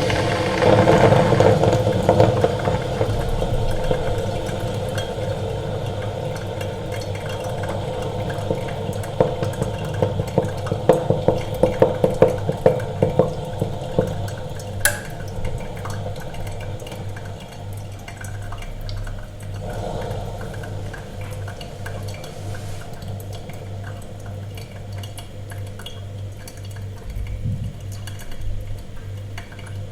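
Coffee machine near the end of a brew: coffee running and spluttering into the cup in a quick run of sharp gurgles, a single sharp click about halfway, then a quieter low pulsing hum with dripping.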